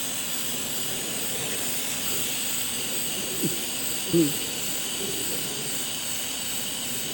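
Steady hiss of a welding arc. A brief voice-like sound cuts in about four seconds in.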